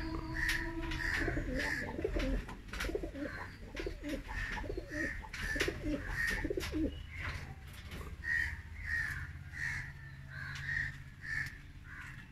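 Domestic pigeons cooing, low rolling coos for about the first seven seconds, with a short higher-pitched call repeating roughly twice a second throughout.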